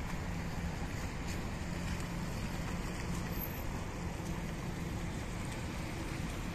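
Steady low rumble and hiss of street ambience on wet paving, with slow-moving cars nearby.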